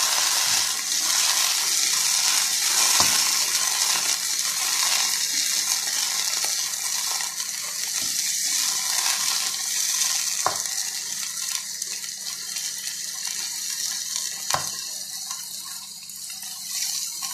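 Chicken pieces sizzling in hot oil in a nonstick frying pan while being stirred with a spatula, with a few sharp knocks of the spatula against the pan. The sizzle slowly dies down toward the end.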